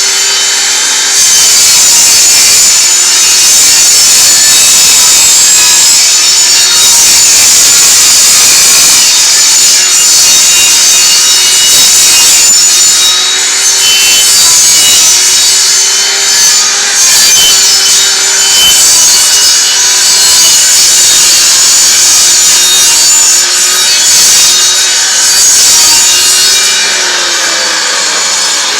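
Table saw running with its blade cutting up into 5/8-inch plywood while the sheet is turned slowly on a pivot bolt to cut a circle. A loud, steady cutting sound, mostly high hiss and rasp, with a low hum that wavers slightly in pitch.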